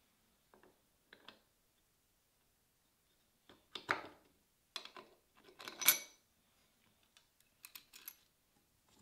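Small metal clicks and scrapes as the steel cutter of a wooden router plane is slid into its body and a steel clamp bar is set over it. The sounds come in short clusters, the loudest clatter about six seconds in.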